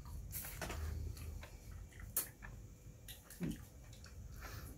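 Faint wet clicks and smacks of eating by hand: chewing, and fingers working fufu and soup in a bowl.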